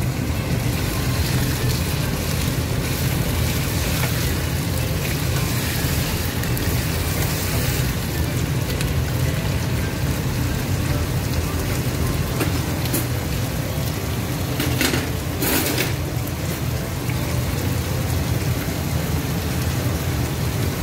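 Chicken pieces sizzling in oil in a nonstick kadai, a steady crackling hiss over a low rumble, with a few short scrapes or knocks of a slotted spatula in the pan about two-thirds of the way through.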